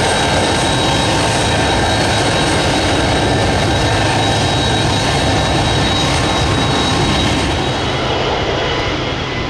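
The three General Electric CF6 turbofans of a McDonnell Douglas KC-10 Extender running at taxi power as it rolls by: a loud, steady jet rumble with a high whine, easing slightly near the end.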